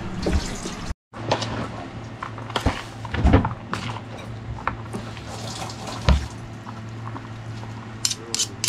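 Briefly, water and washing at a galley sink. Then a fork and spoon toss a noodle salad in a large bowl, with wet stirring and knocks and clicks of the utensils, and a quick run of sharp clinks near the end. A steady low hum runs underneath.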